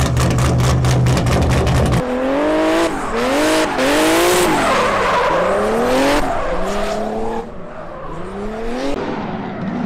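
A steady low rumble with a fast, even pulse, then a drift car's engine revving up and dropping again and again as it slides through a corner, with tyre screech at its loudest about four seconds in. Both ease off near the end.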